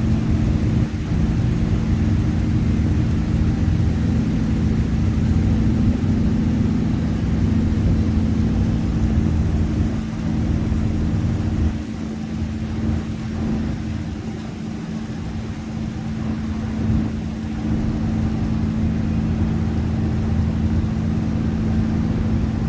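A river ferry's engine running with a steady low drone, under rain, a little quieter from about halfway.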